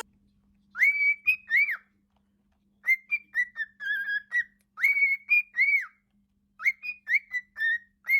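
Parrot whistling a short phrase of high, clear, arching notes, repeated four times with pauses between.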